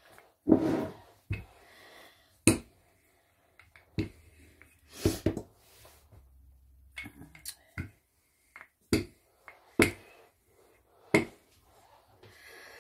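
Wooden rolling pin working pie crust dough on a floured silicone mat: irregular sharp clicks and soft knocks as the pin is rolled, lifted and set back down.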